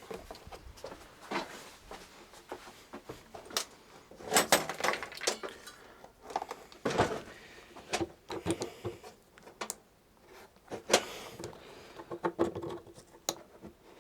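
Pliers working stiff plastic door-trim clips loose from a Lada Kalina door: scattered clicks, creaks and scraping of plastic and metal, with a sharp click late on.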